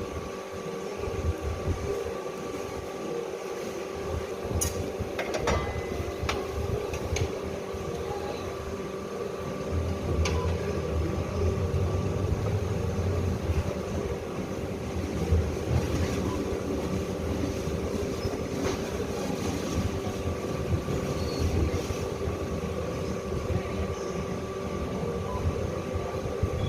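Semi-automatic strapping machine running with a steady mechanical hum, plus a few sharp clicks about five seconds in.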